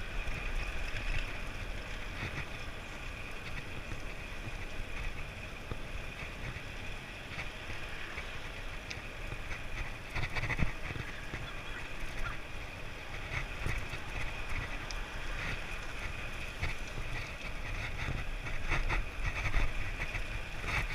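Wind rushing over the microphone and road noise from a bicycle riding along a paved road, with a few sharp knocks about halfway through.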